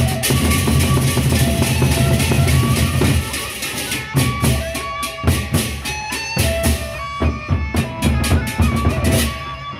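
Gendang beleq ensemble playing: large Sasak double-headed barrel drums beaten with sticks in a dense, rapid rhythm that thins to separate heavy strokes after about three seconds. Crashing hand cymbals and a short-note melody run over the drums.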